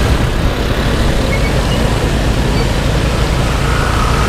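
Steady wind rush and rumble on the microphone of a moving motorbike, with road traffic noise underneath.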